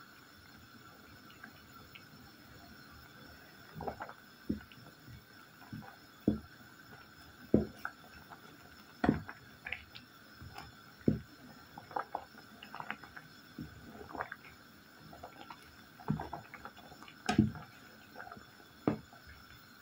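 Pot of fruit infusion at a rolling boil: irregular bubbling with sharp pops every second or two, over a faint steady hum.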